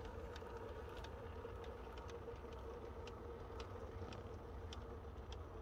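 Radio-controlled crawler running quietly: a faint steady hum with thin, irregular light clicks, roughly two a second.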